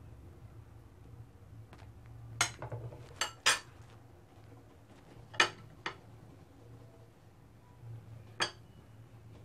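A steel spoon clinks against a ceramic plate while spiced potato filling is spread on bread. There are about six sharp clinks with a brief ring, over a low steady hum.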